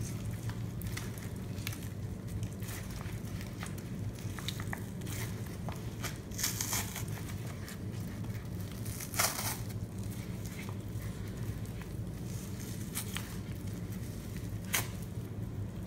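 Rubber-gloved hand squeezing and crushing wet sponge pieces soaked in Comet cleanser paste: a dense run of small wet clicks, with louder squeezes about six and a half, nine and fifteen seconds in. A steady low hum runs underneath.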